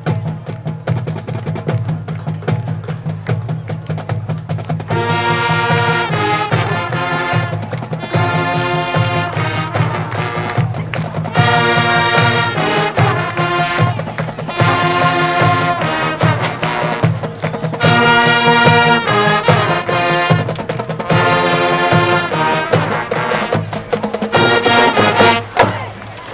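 Marching band playing: the drum line keeps a steady fast beat. About five seconds in, the brass section joins with loud sustained chords in short phrases with brief breaks between them. The band cuts off shortly before the end.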